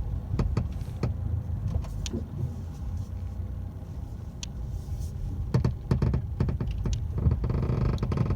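Low road and engine rumble inside a moving 2018 Mercedes-Benz A-Class cabin, with repeated short creaks and clicks from the rear seat backs in their upright position. A longer, denser creak comes near the end. It is the rear-seat creak the owner can't account for, which stops when the seats are folded flat.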